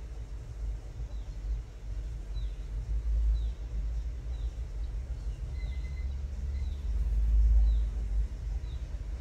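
A bird repeating a short, high, falling chirp about once a second over a low rumble that swells about seven seconds in.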